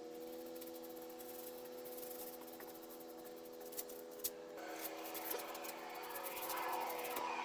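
Electric paint sprayer running with a steady motor hum under the hiss of spraying paint. About halfway through, the hum shifts and the spray hiss grows louder.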